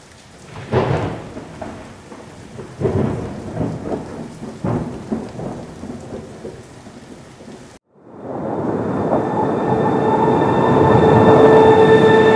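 Rumbles of thunder over steady rain, in several surges that die away. After a short break of silence, a rising swell of noise with a few held tones.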